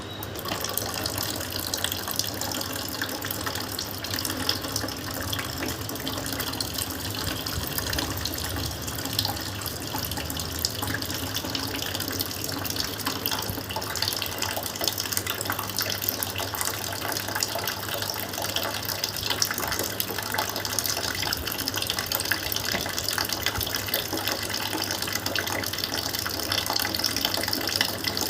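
Jal neti nasal rinse: a steady stream of salted water from a neti pot running through the nose and pouring out of the nostril, splashing down. It starts abruptly and runs on without a break.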